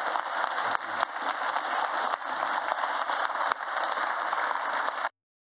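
Audience applauding: dense, even clapping from a large seated crowd, cut off suddenly about five seconds in.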